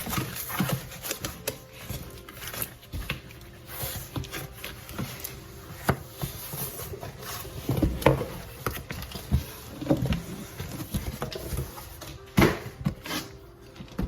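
Hands handling product packaging at close range: irregular rustling with clicks and knocks, the loudest about eight seconds in and again about twelve and a half seconds in.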